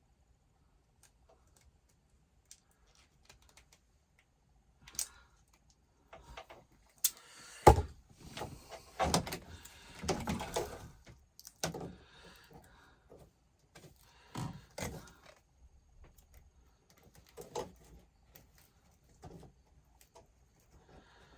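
Scattered clicks, knocks and rustling of hands and tools working on wiring as a split wire is redone. The start is nearly silent, and a single sharp knock is the loudest sound.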